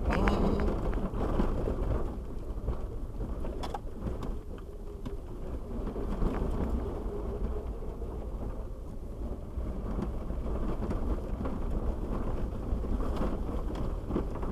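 2001 Jeep Wrangler TJ crawling along a rough dirt and rock trail, heard from inside the cab: a steady low rumble of engine and tyres, with scattered knocks and rattles as it goes over bumps.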